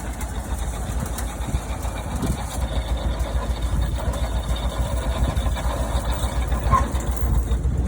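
An old truck's engine running steadily at low speed, a dense, rapidly pulsing low rumble, as it powers a wire-rolling machine winding up fence wire.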